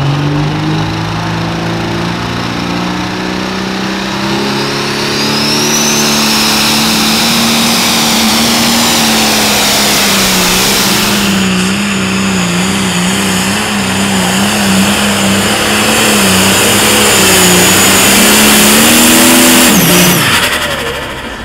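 Turbocharged diesel engine of a Limited Pro Stock pulling tractor revving up and running flat out under the load of the sled, its engine speed wavering up and down, with the turbocharger's high whistle rising over it. About twenty seconds in the revs drop off sharply.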